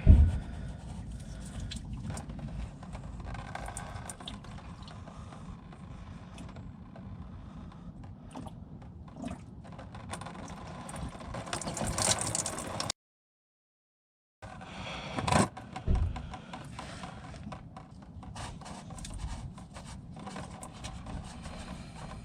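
Scraping, clinks and knocks of hands and tools working at a diesel fuel filter housing under a car, with a loud knock at the start and two more a few seconds after a sudden break to silence partway through.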